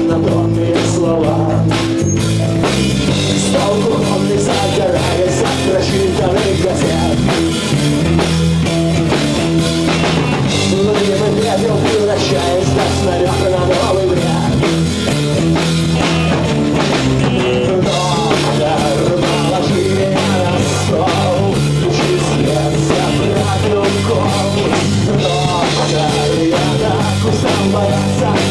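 A rock band playing a Russian rock song: a male voice singing over strummed acoustic guitar, electric guitar and a drum kit, with a steady beat.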